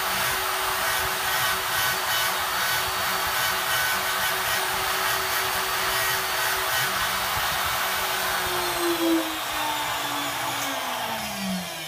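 PRO Scientific PRO250 laboratory homogenizer with a 10 x 115 mm probe running in a tube of flour suspension: a steady motor whine over a strong hiss. Over the last three seconds the pitch falls steadily as the motor slows down.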